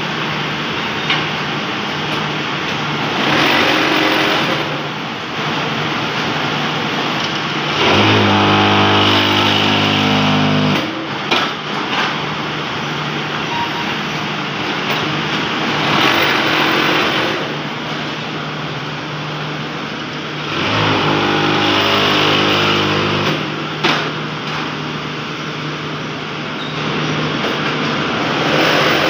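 Columbia fly ash brick-making press running through its moulding cycle: a steady machine drone, twice rising into a louder low hum for about three seconds, each time ending in a sharp knock.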